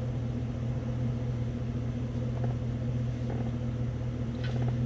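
Steady low hum of the Silverado's 6.2 L V8 idling, heard from inside the cab.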